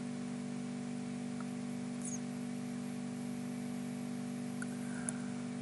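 Steady electrical hum and hiss of the recording's background, with a faint click about five seconds in.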